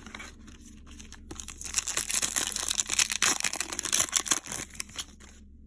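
Plastic wrapper of a football trading card pack crinkling and tearing as it is ripped open, starting about a second in and stopping near the end.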